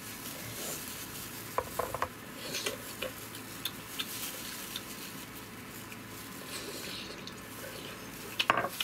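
Handling and eating a cooked sea snail: the meat dipped in chili sauce and chewed, with disposable plastic gloves rustling and a few light clicks about two seconds in.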